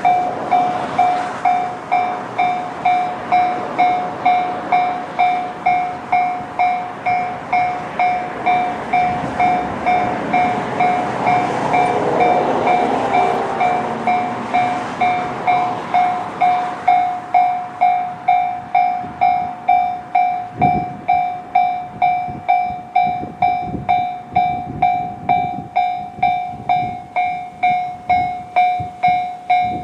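Japanese level-crossing alarm ringing its JR standard electronic bell tone, about one and a half dings a second. Over it an E129 series electric train passes through the crossing, loudest about twelve seconds in and gone by about seventeen seconds, with the alarm still ringing after.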